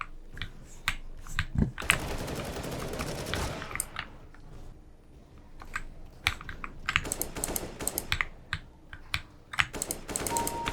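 Typing on a Redragon Fizz mechanical keyboard fitted with Akko switches: irregular keystroke clicks, thinning out for a moment in the middle. A short beep sounds near the end.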